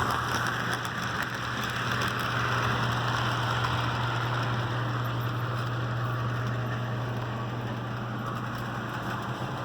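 HO scale model train running along the track: a steady whirring rumble of motor and wheels, with a constant low hum underneath.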